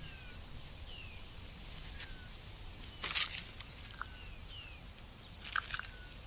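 Crickets chirping in a fast, even, high-pitched pulse that gives way to a steady high trill about three seconds in. Short falling chirps come about once a second over it. A brief crackle comes about three seconds in and another near the end.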